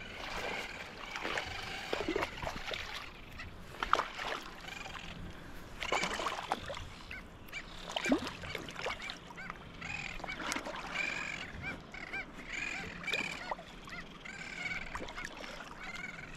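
A dense chorus of seabirds calling over one another: many short, arched, honking cries overlapping continuously, over a low steady background rumble.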